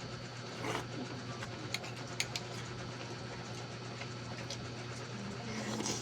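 A steady low hum over a constant background hiss, with a few faint clicks in the first half.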